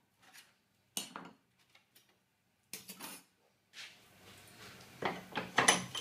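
Perforated steel cable tray and a metal bench vise clanking as the tray is handled and repositioned in the vise. A couple of separate clanks, then a run of rattling knocks that grows louder near the end.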